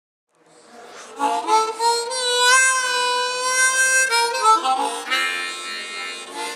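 Harmonica played solo: it comes in softly, holds one long chord with a slight waver in it, then moves through several shorter chords.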